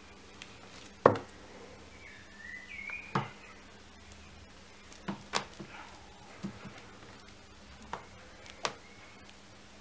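Scattered sharp taps and knocks as a kitten plays with a feather wand toy on a carpeted cat tree, the loudest about a second in. A brief high wavering tone sounds between about two and three seconds in.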